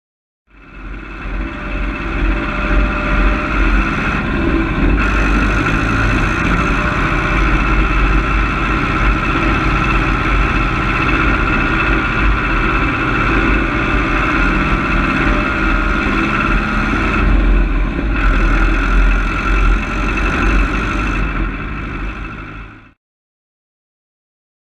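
An engine running steadily: a deep rumble under a high steady whine. It starts shortly after the beginning and cuts off abruptly near the end.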